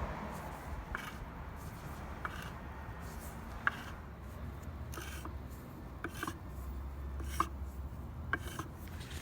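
Irregular light clicks and taps of metal hand tools with some rubbing or scraping, about nine over the stretch, the sharpest a little under four seconds in and a little after seven seconds, over a steady low hum.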